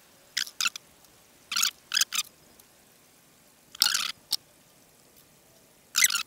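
A hand hacksaw rasping on a small piece of laser-cut MDF: several short, irregular scraping strokes as the cut is started, the longest just before 4 seconds and again near the end.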